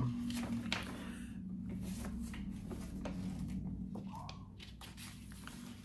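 Pages of a paper catalog being turned and handled: scattered soft rustles and light paper ticks over a low steady hum.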